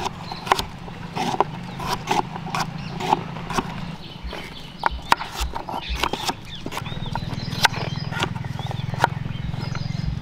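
Large kitchen knife chopping carrots on a wooden cutting board: irregular sharp knocks of the blade going through and striking the board. A low steady hum runs underneath and grows louder about two-thirds of the way through.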